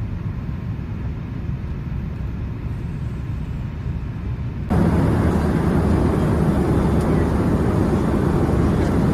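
Steady aircraft noise without words or music, mostly low. About five seconds in it jumps suddenly louder and fuller, then holds steady.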